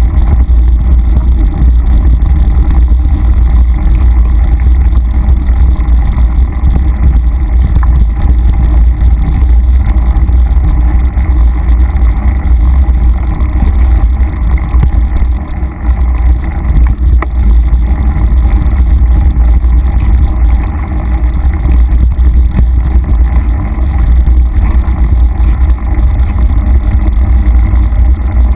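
Loud, steady low rumble of wind buffeting and trail vibration on a riding mountain biker's camera microphone, with a few faint knocks from the bike on the dirt singletrack.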